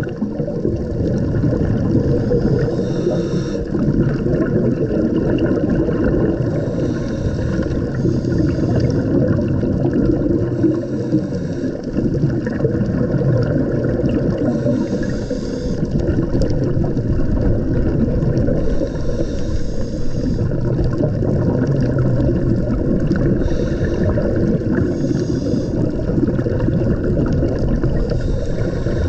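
Underwater rumble of water washing over a diver's camera, with the hiss of a scuba diver's exhaled bubbles from the regulator coming in short bursts every few seconds.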